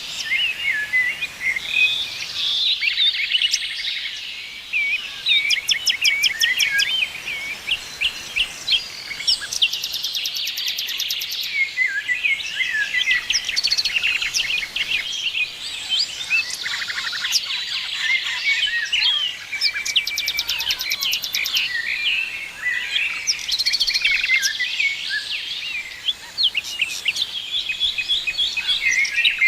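A chorus of many small birds chirping and calling over one another, dense and continuous, with rapid high trills breaking in every few seconds.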